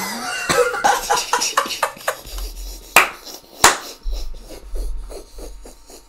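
Hard, breathy laughter in rapid pulses that trail off. Two sharp clicks come about three and three and a half seconds in.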